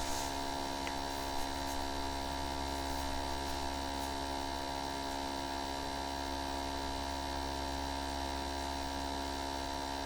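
Steady electrical hum made of several constant tones, unchanging throughout, with a faint click right at the start.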